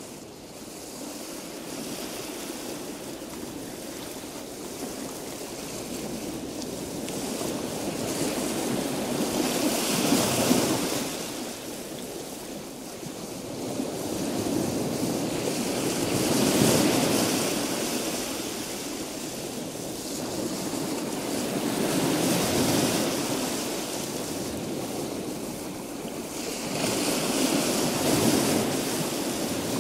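Sea surf washing on a sandy beach: a steady hiss of noise that swells and fades about every six seconds as waves come in.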